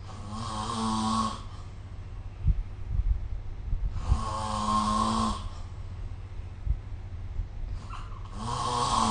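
A sleeping person snoring, picked up by a phone microphone: three snores about four seconds apart, each lasting about a second, the last starting near the end. A few short low thumps sound between the snores.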